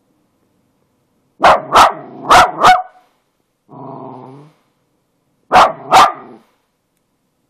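A pet dog barking: four quick sharp barks, a short low growl, then two more barks near the end.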